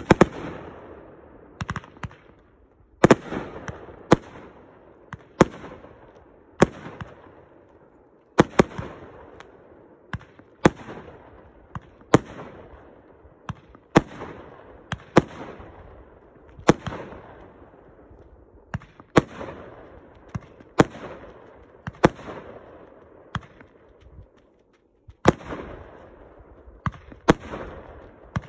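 Consumer multi-shot fireworks cake firing aerial shells. A sharp bang comes about every second or so, each trailing off as it fades, with a short lull a little before the end.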